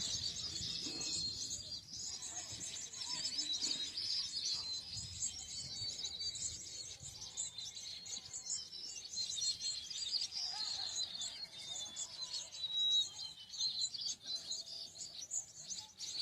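Many small birds chirping and calling at once: a steady, high-pitched chorus of quick chirps.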